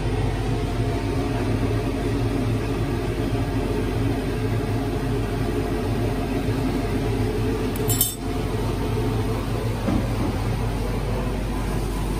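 Steady roar of a gas torch flame heating pewter in a steel ladle, with a single sharp metallic clink about eight seconds in as the ladle knocks against the hearth's fire bricks.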